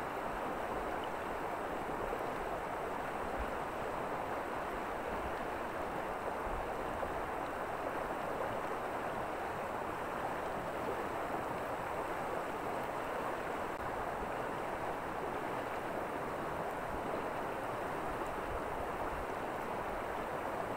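Steady rushing of flowing river water: an even hiss that holds the same level throughout.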